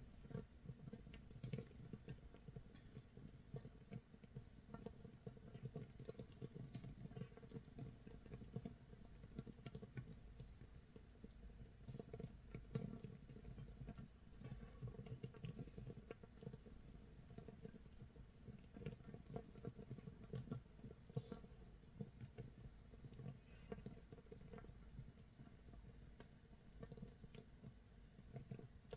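Makgeolli starter mash (mitsul) fermenting in a crock, about 24 hours in: a faint, dense, continuous crackle of tiny bubbles popping, like rain patter or scorched rice crisping.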